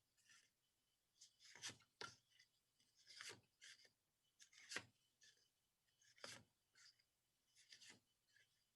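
Near silence with a series of faint, brief scratching sounds.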